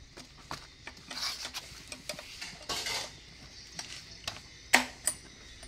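Clinks, clicks and rubbing scrapes of hands handling small brush-cutter engine heads and their metal parts, with a sharp click a little before the end. No engine is running.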